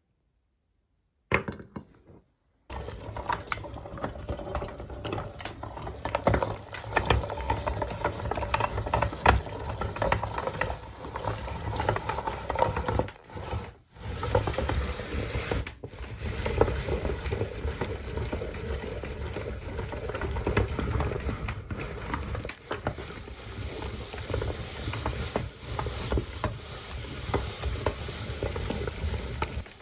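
Meat grinder crushing frozen strawberries: a continuous crackling, crunching noise full of small sharp cracks. It starts after a short silence, with a brief sound just before it, and breaks off briefly about halfway through.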